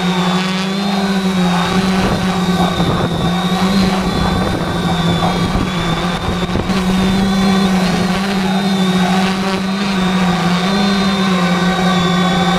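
Multirotor drone's motors and propellers buzzing steadily, close to the onboard camera, with a pitch that wavers slightly as the throttle shifts.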